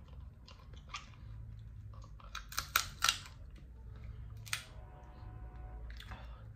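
Sharp cracks and clicks of cooked Dungeness crab shell being bitten and broken apart by hand: three close together about halfway through and another about a second later.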